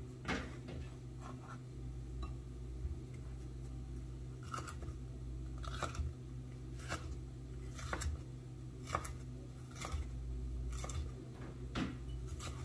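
Chef's knife slicing bell pepper into strips on a bamboo cutting board: a crisp cut ending in a knock of the blade on the board, about once a second, over a steady low hum.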